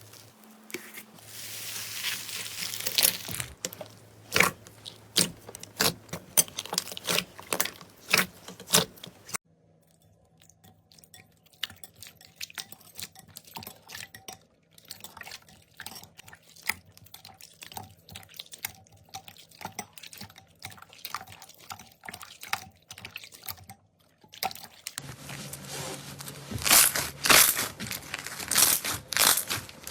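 Slime being pressed and poked, making a run of sharp clicks, pops and crackles; quieter for a stretch in the middle, then loud, dense crackling again near the end.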